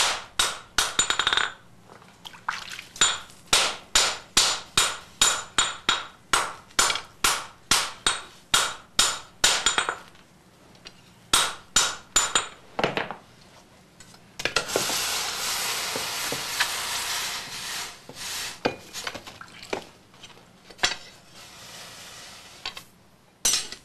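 Hand hammer striking red-hot sword steel on an anvil, sharp ringing blows about two to three a second for some ten seconds: a Japanese swordsmith drawing out the blade blank (sunobe) by hand. After a few more blows comes a steady hiss lasting a few seconds, then scattered blows again near the end.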